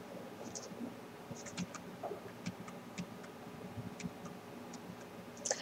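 Faint, irregular clicks and taps at a computer, a dozen or so spread unevenly, over a low steady hum.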